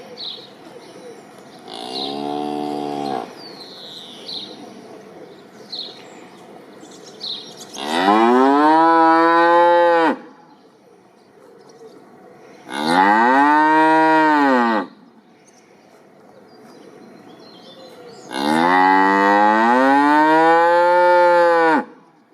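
Cow mooing: one short, quieter moo about two seconds in, then three long, loud moos, each bending up and then down in pitch. Birds chirp faintly behind the first calls.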